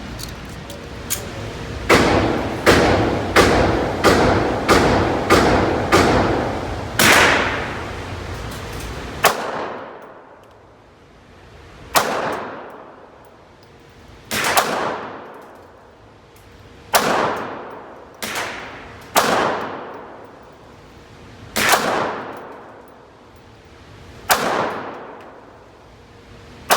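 Pistol shots at a shooting range, each echoing: a quick string of about eight shots, then slower single shots every two seconds or so.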